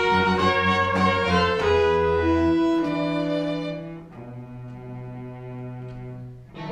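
Pit orchestra strings playing sustained chords, violins over cello and double bass, dropping to a quieter, lower held chord about four seconds in.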